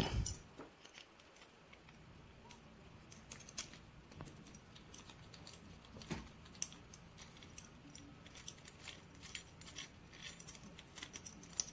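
Faint small metallic clicks and taps from handling a padlock and tools while it is taken apart, sparse at first and more frequent in the second half, with one firmer tap about halfway through.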